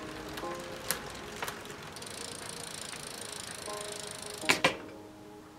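Rear wheel of a road bike spinning freely and coasting down, a soft whirr with a few light ticks from the hub, then a sharp click about four and a half seconds in.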